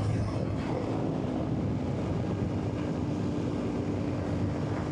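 2024 Yamaha Tenere 700's 689 cc parallel-twin engine running at a steady cruise, with wind noise on the helmet microphone.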